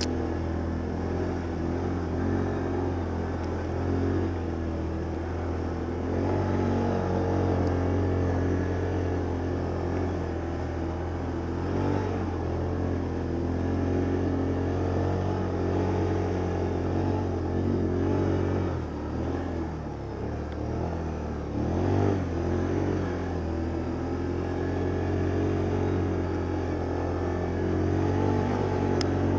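ATV (quad bike) engine running steadily, its revs dropping and picking up again about two-thirds of the way through.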